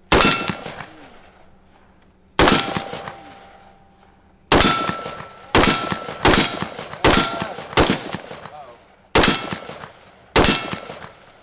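AR-15 rifle fired nine times in slow semi-automatic fire: the first three shots about two seconds apart, then a quicker string of roughly one a second. Several shots are followed by a short ringing ping, the sound of steel targets being hit.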